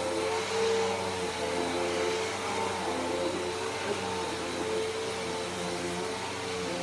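Bissell PowerForce Helix Turbo upright vacuum cleaner running steadily, its motor hum wavering slightly in pitch.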